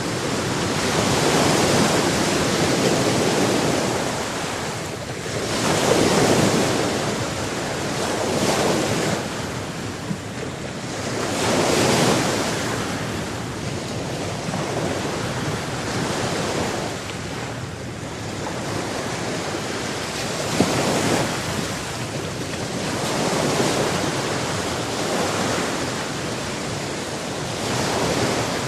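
Ocean waves breaking and washing on the shore, a steady surf that swells and eases every few seconds.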